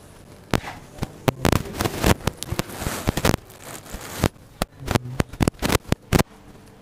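Marker pen drawing lines on a whiteboard: a string of sharp clicks and taps, with a longer scratchy rub around the middle.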